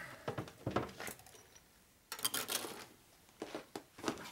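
Light handling noises: scattered small clicks and knocks, with a short rustle about two seconds in.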